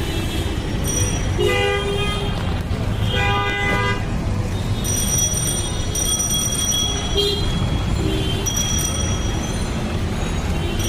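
Road traffic with a steady rumble and vehicle horns honking several times, some short and one held for about two seconds.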